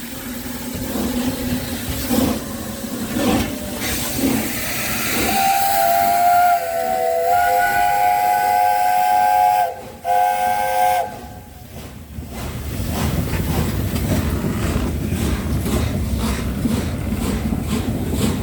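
Steam locomotive 60163 Tornado, a Peppercorn A1 Pacific, hissing as it blows off steam, then sounding its whistle: one long blast about five seconds in and a short second blast right after. A steady rumbling hiss follows.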